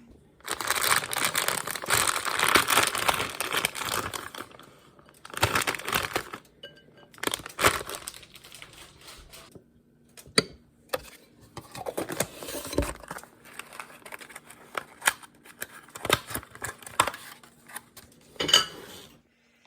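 Crinkling and rustling of something being handled, in several bursts: a long stretch near the start, then shorter ones, with a few sharp clicks in between.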